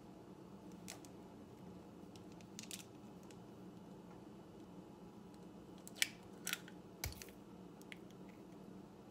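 A few sharp clicks and cracks from an eggshell being broken open by hand over a mixing bowl, the loudest cluster coming about six to seven seconds in, over a faint steady hum.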